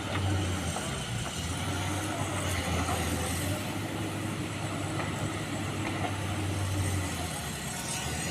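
Excavator's diesel engine running steadily with a low hum.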